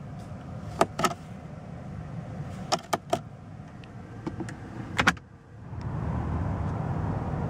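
The glove box lid and latch of a Maybach 62 S being handled: a few sharp plastic clicks, two close together, then three in a quick row, then one more. Then comes a steady low rushing noise.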